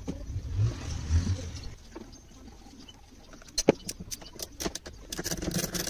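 Scattered clicks and light knocks of plastic and metal parts and tools being handled while a Stihl FS 260 brushcutter's air filter housing is taken apart, the engine not running. A low hum fades out about a second and a half in.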